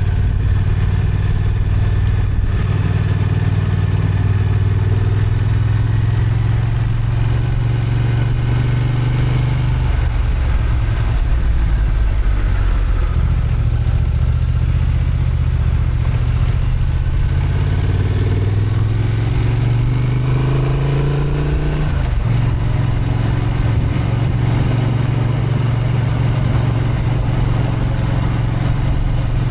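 Honda XL750 Transalp's parallel-twin engine, 35 kW restricted, running steadily as the bike rides along. The engine eases briefly about ten seconds in. About eighteen seconds in the revs climb for a few seconds, then drop abruptly.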